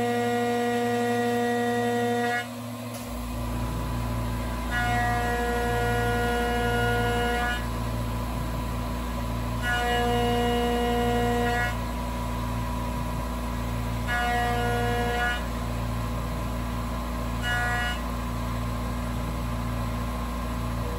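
CNC mill spindle with an end mill facing a metal plate on a 45-degree toolpath. A pitched cutting whine comes in and drops out about every five seconds as the cutter passes across the part, each pass shorter than the last, over the machine's steady hum.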